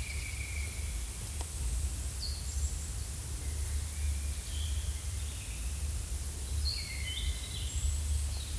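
Forest ambience: scattered short bird chirps and calls over a steady low rumble.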